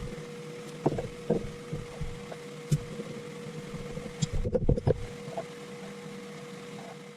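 7x14 mini metal lathe running with no cut, a steady motor hum and tone, while irregular light knocks and clicks come and go, a cluster of them about four and a half seconds in.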